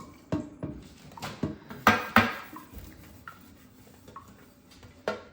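Kitchenware clattering as a baking sheet and dishes are handled: a scatter of knocks and clanks. The loudest two come close together about two seconds in, and another comes just before the end.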